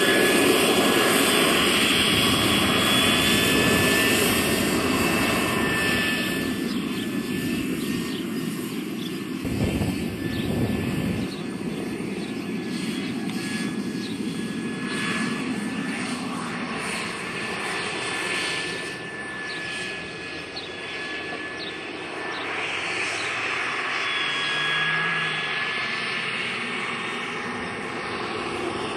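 Model jet turbine driving an RC Hughes 500E scale helicopter in flight: a steady high whine over rotor and exhaust noise, growing quieter and louder again as the helicopter moves about.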